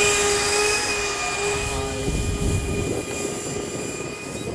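70 mm electric ducted fan of an RC Boeing 737 MAX 8 model airliner whining at a steady pitch under throttle as the model taxis over grass, growing gradually fainter as it moves away.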